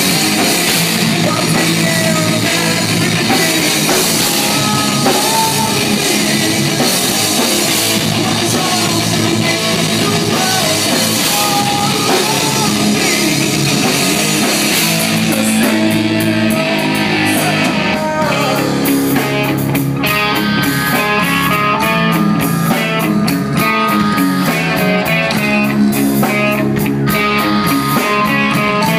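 Live rock band playing loud: electric guitar, bass guitar and drum kit, with a singer's vocals. About halfway through, the cymbal wash drops away and the guitar riff stands out over sharper, separate drum hits.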